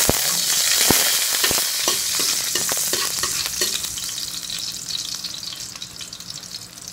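Garlic cloves sizzling in hot cooking oil in a wok. The hiss is loudest at first and slowly dies down, with a couple of light clicks from the metal spatula against the pan.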